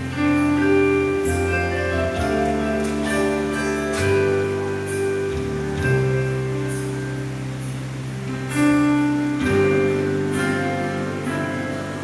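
Instrumental introduction to a church choir song: held chords changing every second or two over a moving bass line, with strummed accents.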